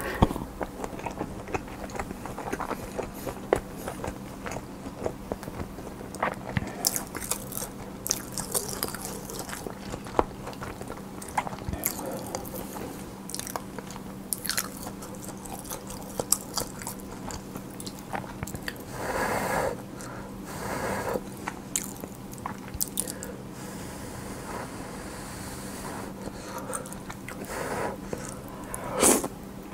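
Close-miked eating: a person biting and chewing food, with crisp crunches and sharp wet mouth clicks throughout. There is a longer rush of noise about 19 seconds in, over a faint steady hum.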